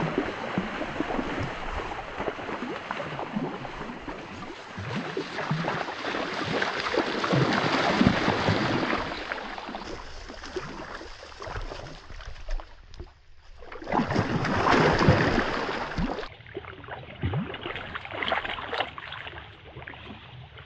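Large common carp spawning in shallow water among reeds, thrashing and splashing noisily. The splashing comes in surges, loudest about eight seconds in and again around fifteen seconds, with a short lull just before the second surge.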